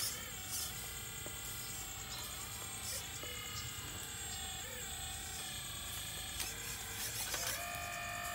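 Radio-controlled hydraulic excavator's pump motor whining as the machine digs and slews, its pitch dipping and rising with the load on the arm. Near the end the whine steps up louder and higher.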